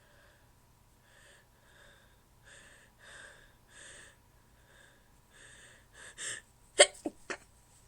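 A woman's hitching breaths, growing louder as a sneeze builds, then one sharp stifled sneeze held in, followed quickly by two smaller stifled sneezes.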